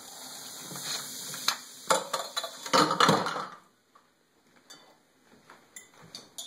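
Brown glass bottles of over-carbonated homemade root beer being opened over a stainless steel sink: fizzing foam for about the first three seconds, with clinks of glass and metal, then only scattered light clinks.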